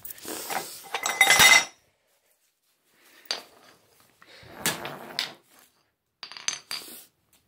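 Metal hand tools clattering and clinking while being rummaged out of a tool bin, loudest in the first second and a half. After that come a few separate knocks and clatters as tools are handled and set down on a tile floor.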